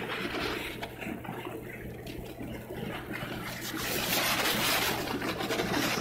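Strong wind gusting and buffeting the microphone, growing louder about three and a half seconds in, over a steady low hum.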